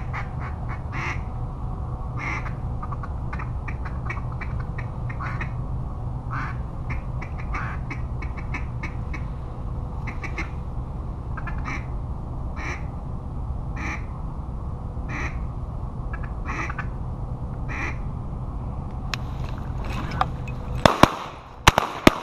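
A duck quacking in short calls about once a second over a steady low rumble. Near the end come three loud, sharp shotgun shots in quick succession.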